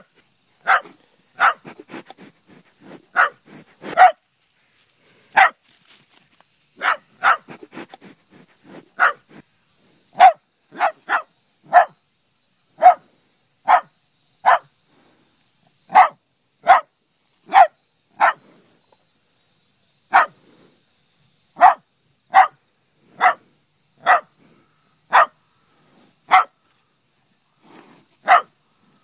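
Italian greyhound barking over and over, single short sharp barks about one a second, at black cattle that frighten it.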